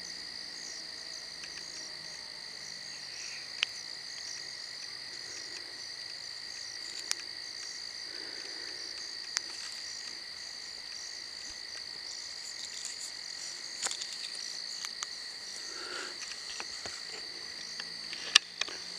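Steady night chorus of frogs and insects, a continuous high-pitched trilling. A few faint sharp clicks are heard, with one louder click near the end.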